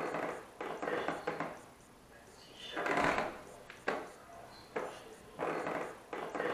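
Creaking of old wooden stairs, slow and uneven, like footsteps coming down the steps one at a time, with a longer, louder creak about three seconds in.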